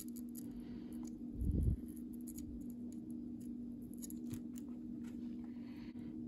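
Soldering iron tip pressing copper desoldering braid onto circuit-board fuse pads, wicking up old solder: faint scattered ticks and scratches over a steady low electrical hum, with a dull bump about a second and a half in.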